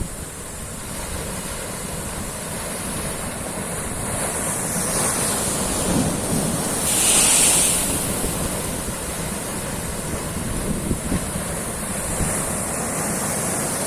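Ocean waves surging and breaking, swelling to one loud hissing break about seven seconds in, with wind buffeting the microphone.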